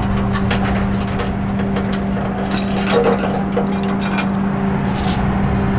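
Rotator tow truck's hydraulics running with a steady hum as the hook-up gear is worked, with scattered metal clicks and scraping.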